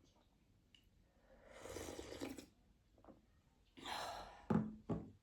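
Close-miked eating sounds: two noisy breaths, then two short sharp mouth smacks near the end.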